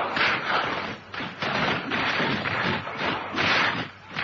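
Radio-drama battle sound effects: a dense, continuous wash of noise with scattered thuds, fading near the end.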